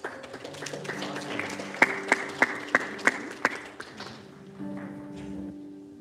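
Congregation applauding, with several louder single claps standing out in the middle; the applause fades about four seconds in. Soft background music of held notes runs underneath and carries on after the applause.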